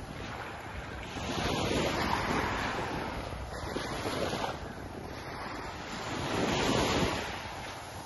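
Small waves breaking and washing up on a sandy beach, swelling louder twice, with wind buffeting the microphone.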